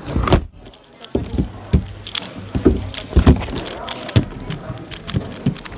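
Irregular clicks and knocks of a 3x3 speedcube being turned one-handed close to the microphone, mixed with dull thumps of the phone being bumped on the table.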